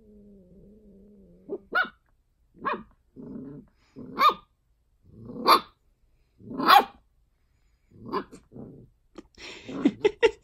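A puppy growls low and steadily, then barks in a series of high, sharp yaps about a second apart, with rougher growls between them. The growls and yaps crowd together near the end.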